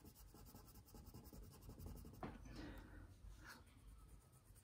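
Faint scratching of a black wax crayon colouring on paper in quick back-and-forth strokes, a few of them a little stronger past the middle.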